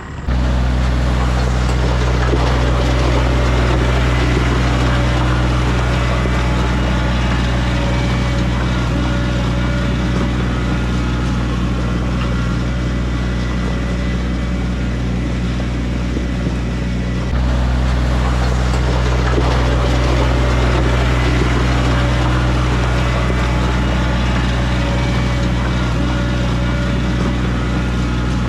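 Diesel engine of a bucket machine running steadily under work close to the microphone, its note stepping up slightly about seventeen seconds in.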